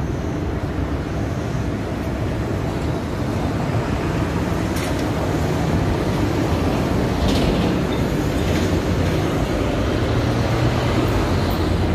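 Street traffic rumbling steadily as cars and a box truck drive across the streetcar tracks, growing louder from about halfway as a TTC Bombardier Flexity Outlook streetcar rolls in near the end.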